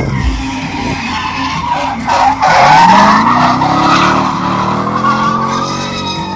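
BMW E30 drifting: its tyres squeal loudly from about two seconds in, over the engine running at high revs, its note climbing and then holding steady as the car slides through the corner.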